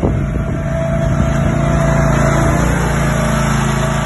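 Ride-on lawn mower's engine running at a steady speed as the mower drives past close by, with a thin whine over the engine hum in the middle; it grows a little louder as the mower passes and eases slightly as it moves away.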